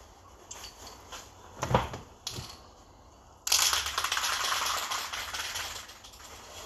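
Aerosol can of spray primer being handled: a few clicks and two sharp knocks, then a sudden loud hissing rattle for about two and a half seconds that fades away.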